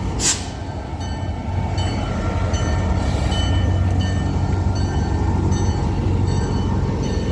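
A train running nearby with a loud, steady low rumble that builds slightly, and a sharp click just after the start.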